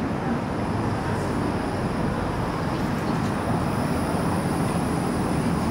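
Articulated low-floor tram rolling closer along street track, a steady rumble of wheels and drive.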